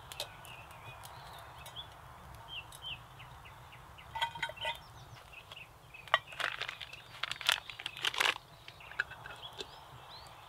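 Campfire crackling under birdsong, with a few metallic clinks about four seconds in and a louder clatter from about six to eight seconds as a metal mug, wooden cup and vacuum flask are handled by the fire.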